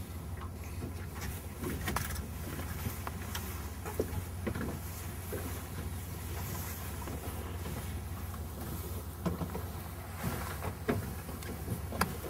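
Fishing boat's engine running steadily at low trolling speed, a low hum, with occasional short knocks and clicks on board.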